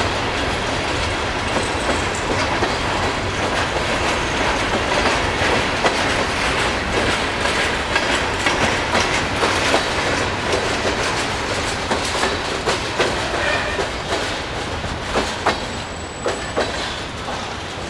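Freight cars of a New York, Susquehanna & Western train rolling past, steel wheels clicking over rail joints over a steady rumble. The clicks come thicker in the second half, a faint high wheel squeal sounds near the end, and the sound fades as the last cars pass.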